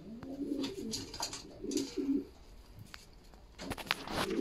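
Domestic pigeons cooing, a run of low, rolling coos over the first two seconds or so. A few brief scuffing noises come near the end.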